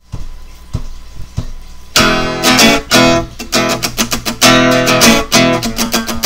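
Intro music with strummed guitar: a few soft notes, then about two seconds in it comes in loud with a steady strumming rhythm.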